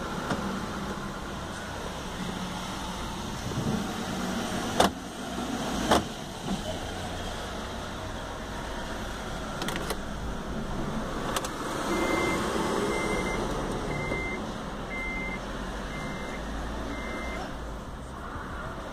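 Sharp clicks as a Honda Fit flip key is put into the ignition and turned, then six short electronic beeps at one pitch, about one a second, while the new key is being programmed.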